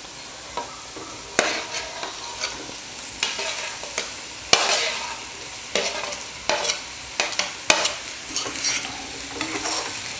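Spatula scraping chopped boiled eggs off a plate into a pan of frying onion masala and stirring them in: irregular scrapes and knocks of the spatula over a steady low sizzle.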